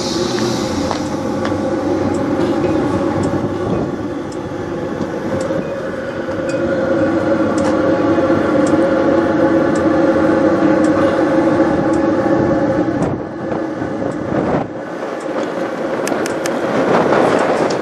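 Kenworth semi tractor's diesel engine idling steadily, heard close beside the cab, with a short dip in level about thirteen seconds in.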